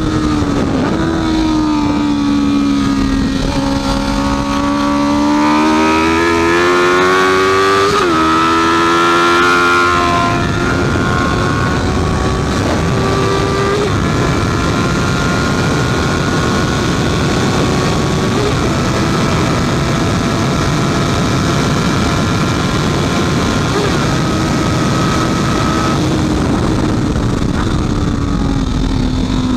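Honda CB650F's inline-four engine at racing speed: its pitch dips, then climbs hard with a gear change about eight seconds in, holds high and steady for a long stretch, and drops near the end, over a steady rush of noise.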